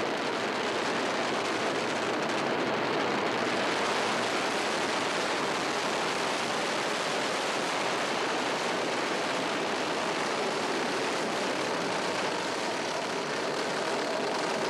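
Ariane 5 rocket climbing away at liftoff: its two solid rocket boosters and Vulcain main engine firing, a dense, steady rushing noise that turns brighter about three seconds in.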